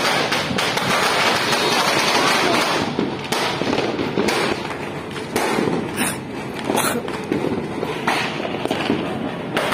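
Firecrackers and fireworks going off: a dense crackling barrage of bangs for about the first three seconds, then separate bangs every second or so.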